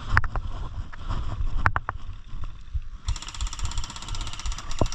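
Rumbling wind and handling noise on a body-worn camera's microphone as the wearer moves, with a few sharp clicks. About three seconds in, a rapid, even ticking starts and runs for about two seconds.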